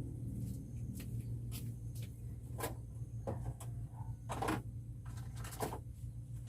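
A series of light knocks and clicks from things being handled, irregularly spaced and loudest a little past the middle, over a steady low hum.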